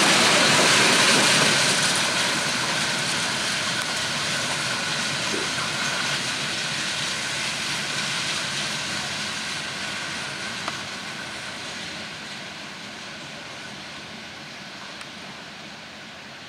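Bangladesh Railway intercity express train rolling past on the track, its coaches loud at first and then fading steadily as the train pulls away into the distance.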